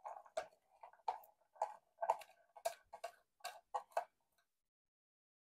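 Clear plastic container of chopped onion tapped and shaken upside down over a stainless steel bowl, giving a quick run of light, uneven taps as the onion pieces drop out, stopping about four seconds in.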